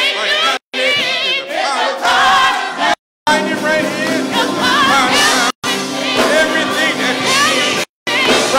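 Gospel church choir singing together with strong vibrato. The sound cuts out to silence briefly four times.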